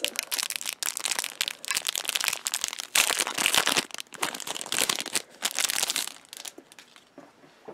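Clear cellophane wrapper crinkling in quick irregular bursts as fingers pry it open and pull out a pack of memo pads; the crinkling dies down near the end.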